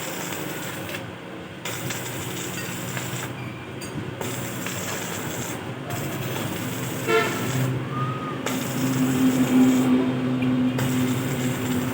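A motor vehicle running, with a steady low drone that grows louder in the second half.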